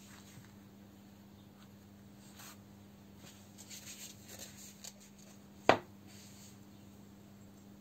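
Soft rubbing and scraping of hands at work, then one sharp knock a little before six seconds in, over a faint steady hum.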